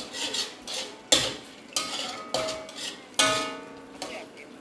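A metal utensil scraping and clanking against a pan while stir-frying fried rice: a string of knocks, the two loudest ringing out briefly about a second in and about three seconds in.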